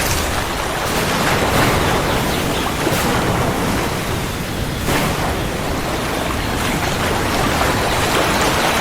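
Heavy rain falling steadily, with a low rumble of thunder running underneath.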